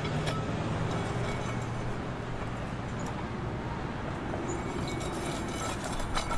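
Steady road noise from cars passing in the next lane, with a low engine hum fading out over the first second or two and a few faint clicks near the end.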